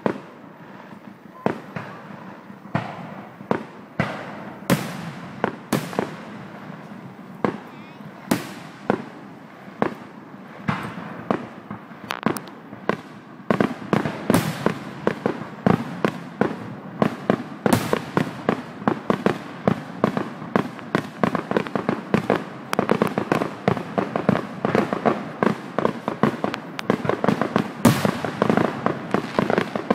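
Aerial fireworks shells bursting in the sky. The bangs come about a second apart at first, then faster and overlapping from about halfway through into a dense rapid string of bangs and crackles.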